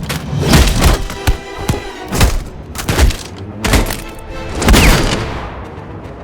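A string of designed cinematic sound effects: about eight sharp hits and thuds in an uneven rhythm, some ringing on after the strike, with a quick falling sweep about three quarters of the way through.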